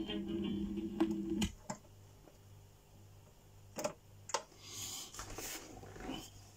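A reggae single playing on a turntable ends about a second and a half in. A few sharp clicks and a short rustle follow as the tonearm is lifted off the record and set back on its rest.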